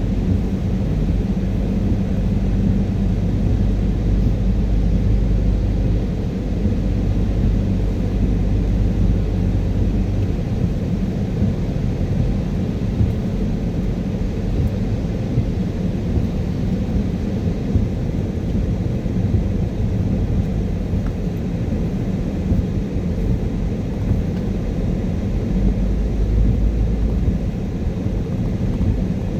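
Car driving on a wet motorway in rain: steady low road and tyre rumble with engine drone. A low drone drops away about ten seconds in, and the rumble swells briefly near the end.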